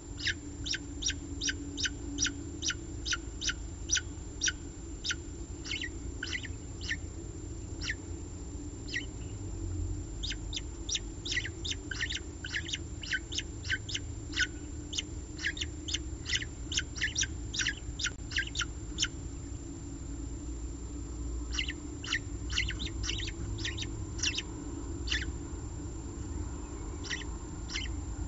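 Downy peregrine falcon chicks cheeping in quick runs of short, high peeps, a couple a second, with a pause of about two seconds past the middle: food-begging calls during a feeding. A steady low hum runs underneath.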